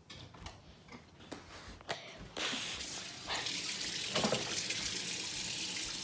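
A few light clicks and knocks, then a kitchen tap is turned on about two seconds in and water runs steadily into the sink, with an occasional knock of dishes.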